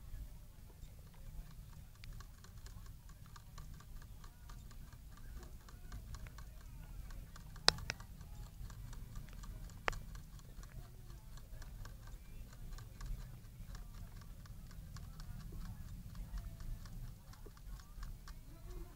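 Hamster drinking from a water bottle's metal sipper tube, its licks on the tube's ball valve giving a rapid, even ticking several times a second. Two sharper, louder clicks come near the middle.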